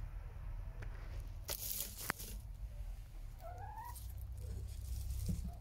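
Rustling in nest-box straw with a couple of sharp clicks, then one short rising call from a laying hen about halfway through, over a low rumble.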